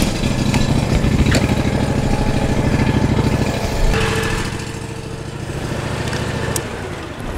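Riding lawn mower's engine running as it warms up before an oil change, so the oil drains more easily. It runs steadily, then gets quieter about four seconds in.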